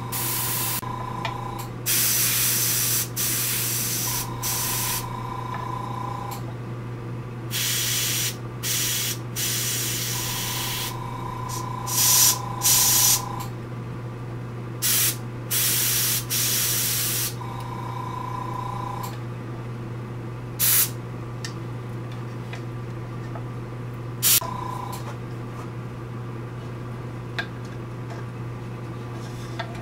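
Airbrush hissing in about a dozen short, irregular bursts as the trigger is pulled to spray small dots of thinned paint, some bursts carrying a faint whistle. A steady low hum runs underneath.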